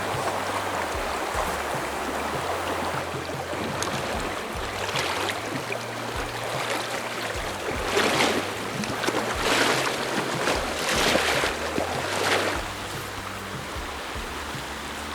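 A high, fast river rushing steadily, with four louder splashy surges one after another in the second half.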